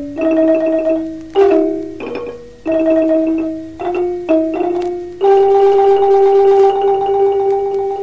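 Ranat, Thai keyed xylophones, playing a slow phrase of rolled tremolo notes, the last note held for about three seconds. The recording is copied from a cassette tape.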